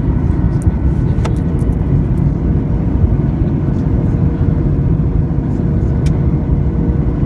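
Cabin noise inside a Boeing 737 MAX on its approach: a steady low rumble of airflow and the CFM LEAP-1B engines under a faint steady hum, with a couple of light clicks.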